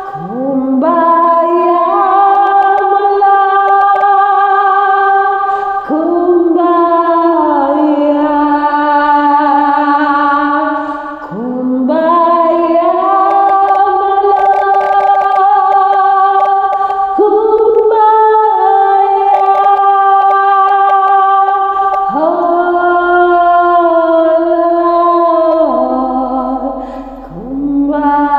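A woman singing slowly and unaccompanied, in long held notes. Each phrase lasts about five seconds and opens with an upward slide into the note, with a brief dip between phrases.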